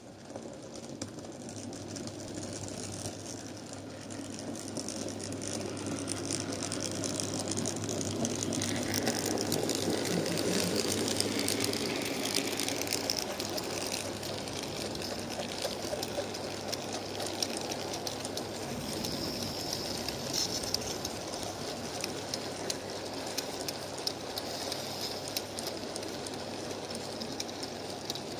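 N gauge model train, a Class 37 locomotive hauling a rake of MEO coal wagons, running past on the layout's track. The small wheels make a steady whirring rattle with fine clicking over the rails. It grows louder up to about ten seconds in, then eases slightly as the wagons and brake van roll by.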